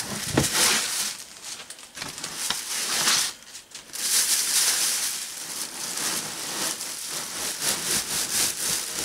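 Packing material rustling and crinkling as a statue piece is worked out of its box, with a short lull about halfway through.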